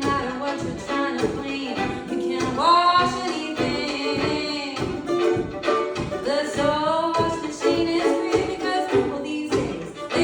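Live folk song: a voice singing over acoustic string accompaniment in a steady strummed rhythm, with sung phrases rising into held notes about two and a half seconds in and again near the middle.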